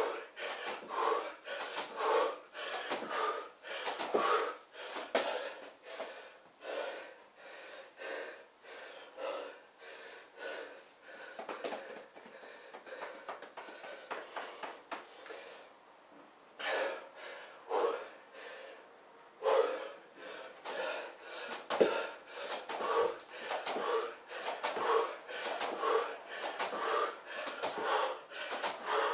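A man breathing hard and loudly through split lunge jumps, his shoes landing on an exercise mat about once a second. In the middle the landings stop for several seconds and only his breathing goes on. The jumps start again about 17 seconds in.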